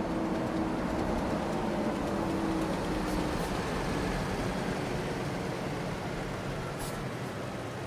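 Large truck driving, its engine hum and road noise steady, with the engine tone fading out about three seconds in and the overall sound easing off slowly.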